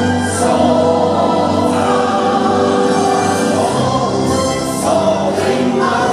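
Orchestral show soundtrack with a choir singing, played loud over outdoor speakers.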